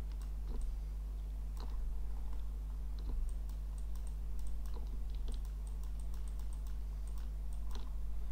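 Scattered, irregular clicks of a computer mouse and keyboard over a steady low electrical hum.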